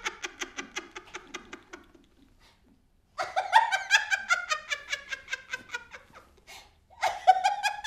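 A woman laughing loudly in rapid 'ha-ha-ha' pulses, in two long fits with a short pause between them; the second fit slides down in pitch. A third burst of laughter starts near the end.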